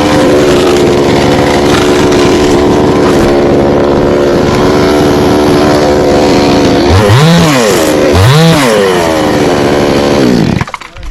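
Chainsaw engine running steadily at high speed, revving up and back down twice near the end, then cutting off.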